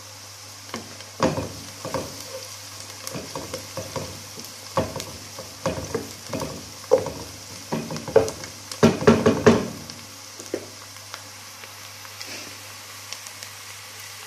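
Chopped onions sizzling in hot oil in a nonstick pot as they fry toward light browning. A wooden spatula stirs and scrapes against the pot in quick strokes from about a second in until about ten seconds, loudest around nine seconds, and then only the steady sizzle remains.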